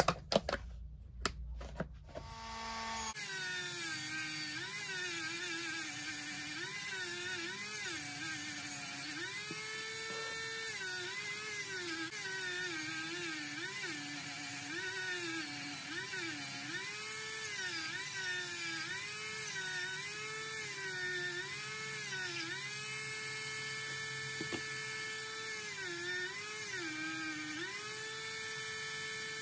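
A few sharp clicks and knocks, then, from about three seconds in, a handheld rotary tool running a polishing wheel against a small metal toy axle. Its motor whine keeps dipping in pitch and recovering as the wheel is pressed onto the axle, and holds steady when it runs free.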